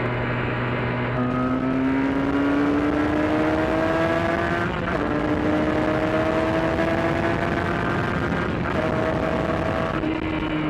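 Benelli 302's parallel-twin engine accelerating under the rider: the pitch climbs, drops at an upshift about five seconds in, climbs again through a second shift, then eases off near the end. Wind rush runs underneath.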